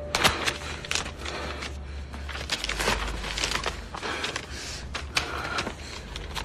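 Paper notebook pages being leafed through and handled, a run of irregular crisp rustles and crackles, over a faint steady low hum.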